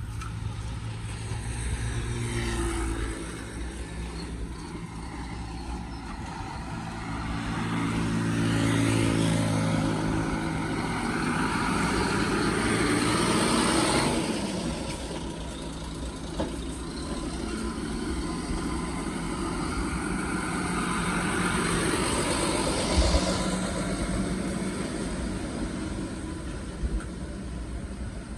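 Road traffic passing: a heavy truck's engine running by close, with other vehicles swelling past and fading away one after another. A single sharp knock about two-thirds of the way through.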